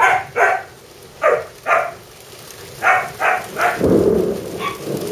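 A dog barking repeatedly in quick pairs and triples over the steady hiss of rain, with a low rumble swelling briefly about four seconds in.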